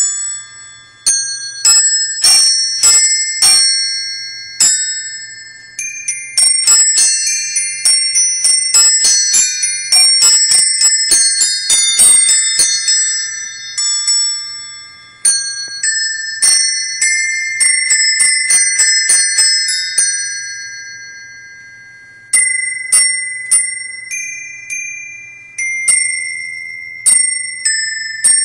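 Electric caroling Christmas bell set playing a tune by itself, its small metal bells struck one after another, each note ringing and dying away. The notes come thick and fast in the middle and more sparsely near the end, and the set is working as it should. A faint steady hum lies underneath.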